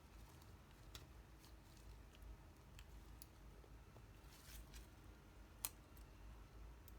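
Near silence with scattered faint clicks and light scrapes of small objects being handled, and one sharper click a little over halfway through.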